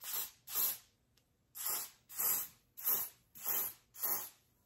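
EBIN Wonder Lace Bond wig adhesive spray hissing from its aerosol can in short squirts onto the wig lace at the hairline. There are seven short sprays: two at the start, then after a pause of about a second, five more in quick, even succession.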